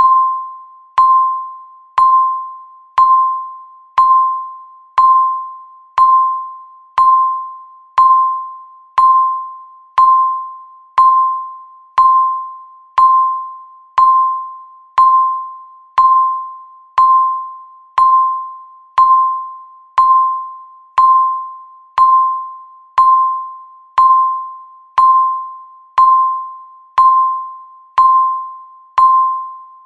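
Countdown timer tick sound: a short electronic ding near 1 kHz, once a second, each one ringing and dying away before the next.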